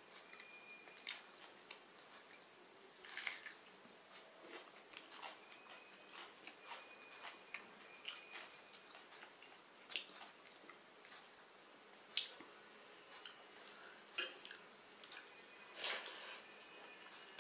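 Light kitchen handling sounds: scattered clicks, taps and short scrapes, with a louder scraping rustle about three seconds in and another near the end.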